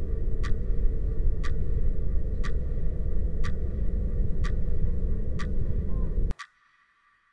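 Clock-like ticking, one sharp tick each second, over a loud low rumbling noise. The rumble cuts off suddenly near the end, leaving the ticking alone.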